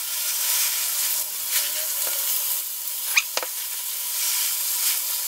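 Diced chicken breast sizzling steadily as it browns in sesame oil in a stainless steel pan, with two light clicks about three seconds in.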